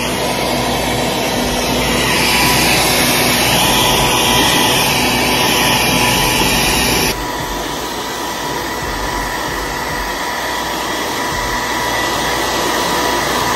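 Hand-held hair dryer blowing steadily, a rushing airflow with a faint motor whine. The level drops slightly and suddenly about seven seconds in.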